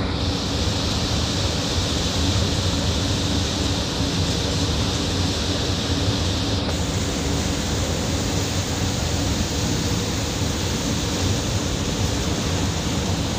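Steady rush of churning water from a ferry's wake behind the stern, with a low, even hum of the ship's engines underneath.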